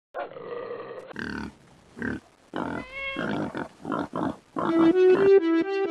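A string of short animal grunts and whines, some rising and falling in pitch. About four and a half seconds in, light music with steady held notes takes over.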